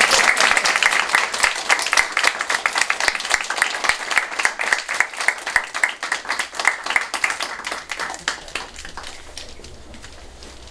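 A small audience applauding. The clapping is dense at first, thins into scattered separate claps, and dies away about nine seconds in.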